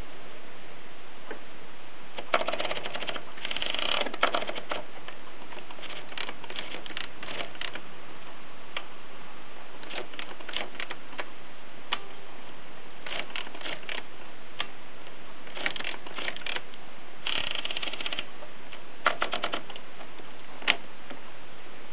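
Bakelite Express portable typewriter being typed on: irregular runs of key strikes separated by pauses, over a steady background hiss.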